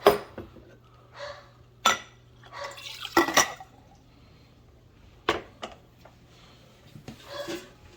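Hard objects clinking and clattering as they are handled, in about six separate bursts, over a faint steady low hum.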